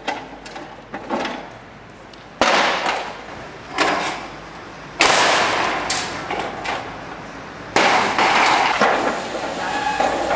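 Demolition work on a building's facade: a few light knocks, then four loud crashes about two and a half, four, five and eight seconds in, each trailing off over a second or so. The crashes come from fittings such as metal sign letters being pried loose and falling.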